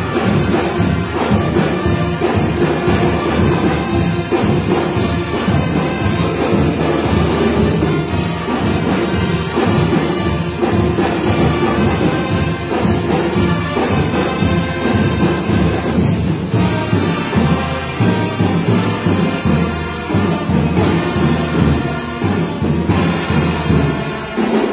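A school marching band playing: trumpets, saxophones and a sousaphone over bass drum and snare drums, with a steady drum beat.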